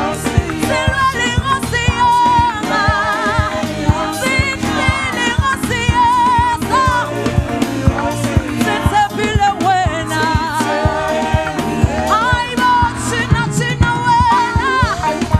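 Live gospel song: a group of singers with a band playing a steady beat.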